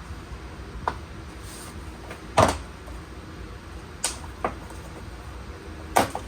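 Five sharp clicks and knocks, the loudest about two and a half seconds in, from hand work prying plastic push clips and trim loose from a car's side skirt.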